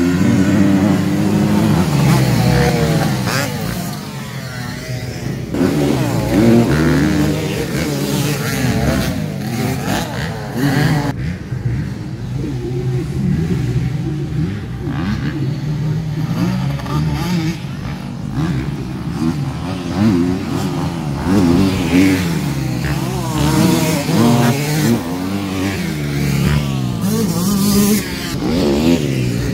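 Several motocross bikes racing, their engines revving up and down with overlapping rising and falling pitches.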